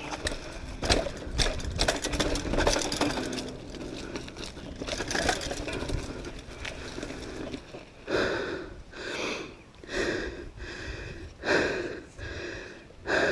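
Mountain bike clattering and rattling over a rough dirt trail descent, with frequent knocks from roots and bumps. For the last five seconds the rider breathes hard, a heavy breath about every second, out of breath from the ride.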